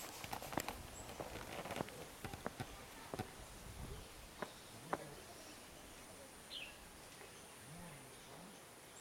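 Faint outdoor ambience: scattered light clicks and steps in the first five seconds, a steady high-pitched whine throughout, and a single short falling bird chirp about six and a half seconds in.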